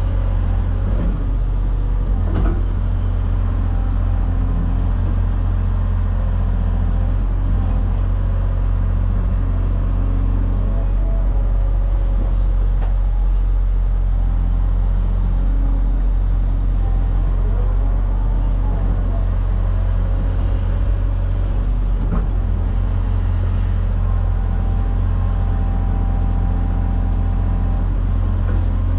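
Heavy diesel engine of earthmoving equipment running steadily under work, a continuous deep drone with a few faint knocks.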